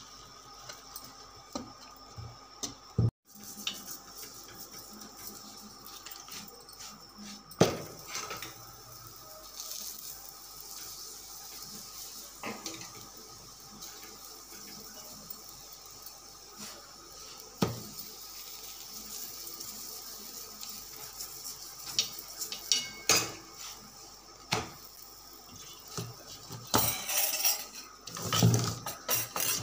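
Kitchen clatter at a gas stove while a paratha cooks on a tawa: scattered knocks and clinks of the pan and utensils over a steady hiss, with a flurry of knocks near the end.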